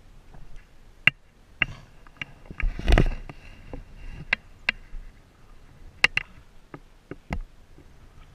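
Close handling noise on a helmet camera as the downed rider moves about in the grass: scattered sharp clicks and knocks, with a short rustling scrape about three seconds in. No engine is running.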